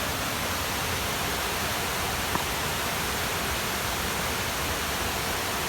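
Waterfall: the steady rush of falling water, even and unchanging throughout.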